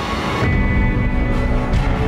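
Dark, tense trailer music: a deep, low held swell comes in about half a second in.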